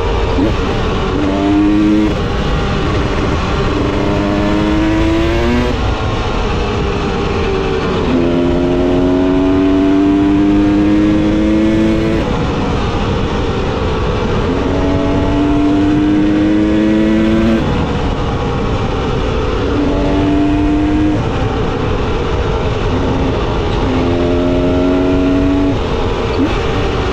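TE300 two-stroke enduro motorcycle being ridden, its engine note climbing in pitch and then dropping back again and again as it accelerates, shifts gear and rolls off the throttle, over a constant rushing noise.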